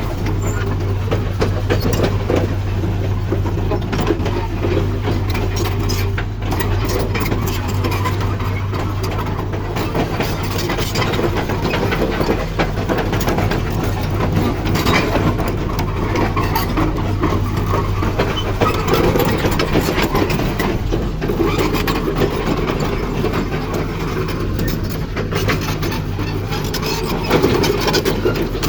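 Diesel engine of a Hitachi UH25-3 hydraulic excavator running steadily, with irregular knocks and clatter throughout as the machine works.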